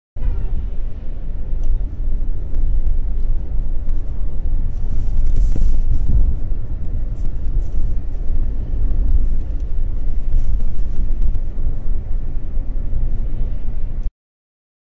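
Low, steady rumble inside the cabin of a Mercedes-Benz W210 E270 CDI cruising at a constant 40 km/h: its five-cylinder common-rail diesel and the tyres on the road. The sound cuts off abruptly near the end.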